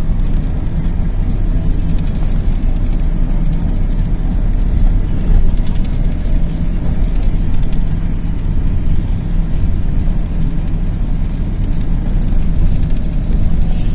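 Bus engine and tyres on the road heard from inside the passenger cabin: a steady low rumble with an even engine hum.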